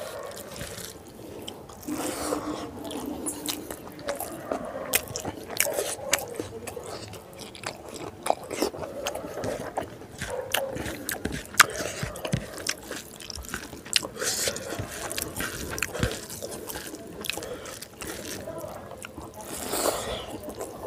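Close-up eating sounds: a person chewing mouthfuls of rice and pork curry with many short wet smacks and clicks, along with the fingers scraping and squishing rice on the plate.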